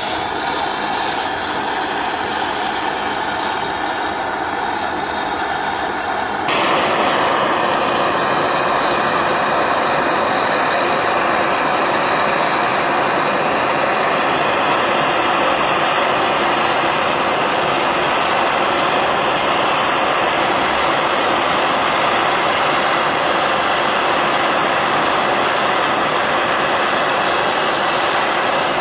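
Handheld butane gas torch burning with a steady hiss. About six and a half seconds in the sound cuts abruptly to a louder, fuller hiss that stays steady.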